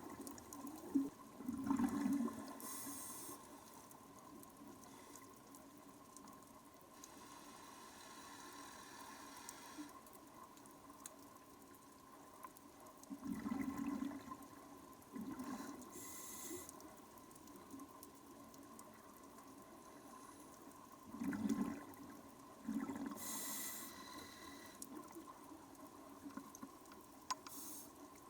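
Scuba diver breathing through a regulator underwater: a few breaths several seconds apart, each a short hiss of inhalation from the regulator and a burst of exhaled bubbles.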